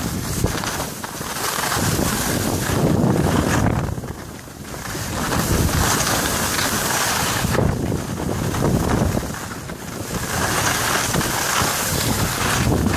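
Wind rushing over the microphone of a camera moving downhill on skis, mixed with the hiss of skis sliding on packed snow. The rushing surges and fades, dipping briefly about four seconds in.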